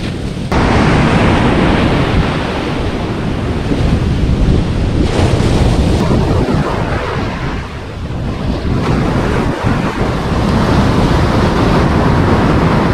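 Ocean surf washing onto a beach, with wind buffeting the microphone; the rush jumps louder about half a second in.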